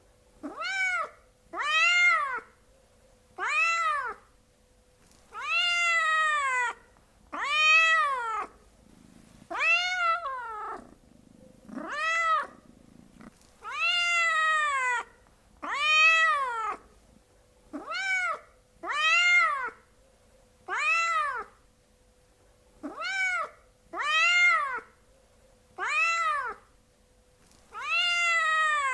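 Domestic cat meowing over and over, about sixteen meows, each one rising and then falling in pitch, with short pauses between them.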